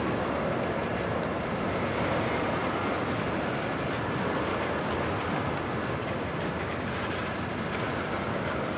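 Freight trains passing at close range: a steady rumble of diesel locomotives and rolling rail cars on the track.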